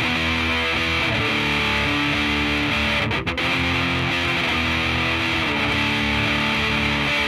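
Punk rock music opening on distorted electric guitar chords, loud and steady, with a brief break a little past three seconds.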